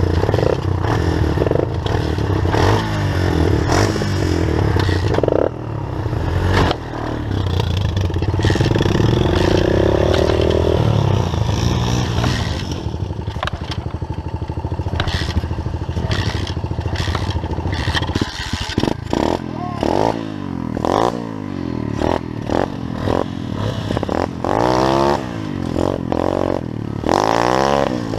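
Pit bike engine running under load while being ridden, its pitch climbing and dropping again and again as it is revved and shifted, with clattering knocks from the bike over rough ground.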